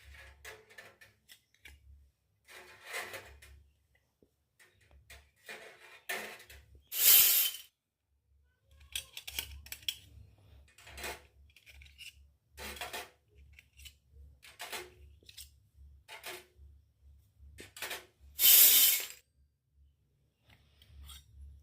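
Miniature steel toy kitchenware being handled, with scattered light clinks and taps. Two louder noisy bursts come about seven and eighteen seconds in.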